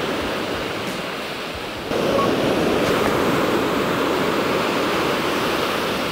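Surf breaking on a sandy beach: a steady rush of waves that swells louder about two seconds in.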